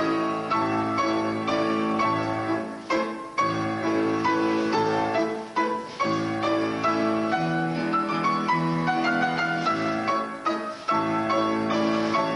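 Piano music, played in phrases of notes and chords with a few brief pauses.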